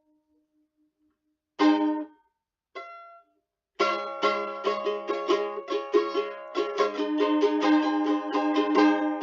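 Background music on a plucked string instrument. After a second and a half of silence a chord is strummed, then a lighter pluck, and from a little before halfway a fast strummed rhythm runs on.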